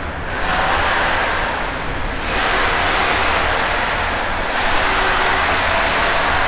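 Steady rushing, rumbling din echoing in a pedestrian road underpass, swelling and easing every couple of seconds.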